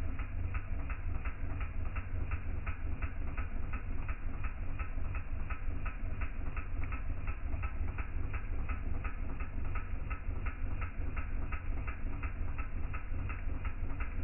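Campfire burning with a steady low rumble and an even ticking about three or four times a second.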